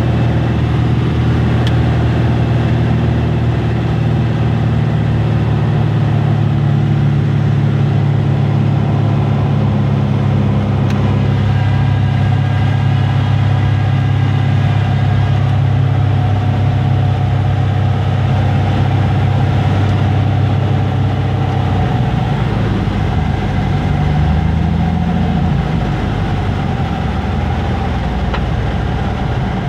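Light single-engine propeller airplane's piston engine and propeller heard from inside the cabin, a steady loud drone on the landing approach. About two-thirds of the way through, the drone weakens and changes pitch as the plane comes in to land on the runway.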